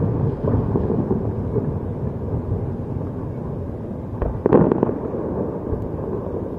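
Fireworks shells bursting far off, heard as a steady low rumble of overlapping booms. A sharper bang about four and a half seconds in is the loudest.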